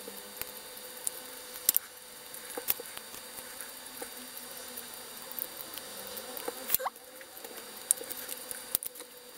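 Scattered sharp plastic clicks and light scraping as the body shell of a Roco BR 01 model steam locomotive is pressed and snapped onto its chassis by hand, over a faint steady hum.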